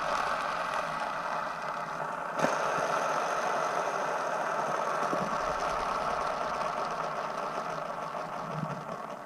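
Skateboard wheel spun by hand, its bearings whirring steadily and slowly dying away. There is one sharp click about two and a half seconds in.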